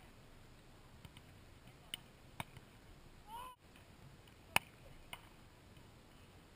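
A volleyball being struck by hands in beach volleyball, heard as a few sharp slaps, the loudest about four and a half seconds in. A short rising-and-falling call sounds about three and a half seconds in.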